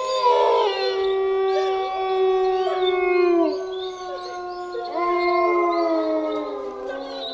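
Closing music of long held notes sounding together as a chord, each note sliding down as it fades; a fresh chord comes in about five seconds in.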